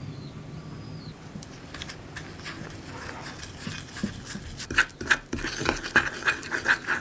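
A small spoon stirring in a ceramic bowl, mixing powder and liquid into black icing paste: soft scraping at first, then quicker, louder clinks and scrapes against the bowl, about three or four a second, over the last two seconds.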